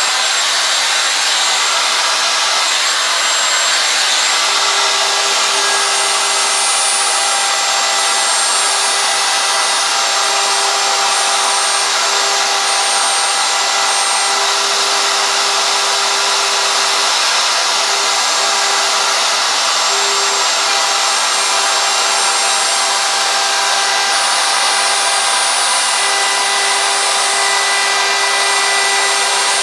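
DeWalt DW618 router running without a break, its 90-degree V-groove bit cutting away the background of a wooden sign: a steady motor whine over the hiss of the cut.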